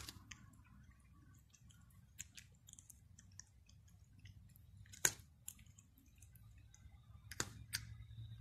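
Egyptian Mau cat crunching dry kibble out of a hand: a run of small crisp crunches and clicks, with two louder crunches about five and seven and a half seconds in.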